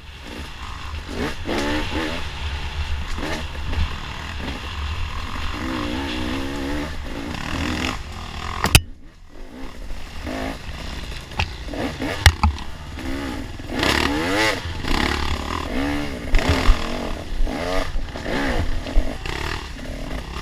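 Off-road dirt bike engine revving up and down over and over as the bike is ridden hard along rough trail, over a constant low rumble. Two sharp knocks stand out, one about nine seconds in and one about twelve seconds in.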